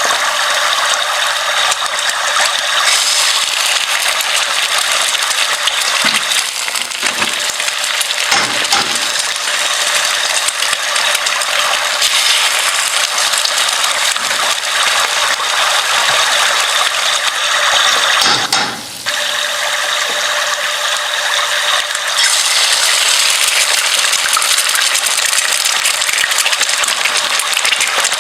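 A continuous, rapid mechanical ratcheting clatter, like a kitchen gadget being cranked or ground. It dips briefly about two-thirds of the way through, then carries on.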